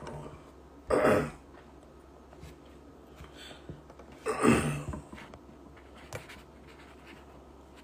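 A man breathing heavily close to a phone microphone: two loud breaths, about a second in and about four and a half seconds in.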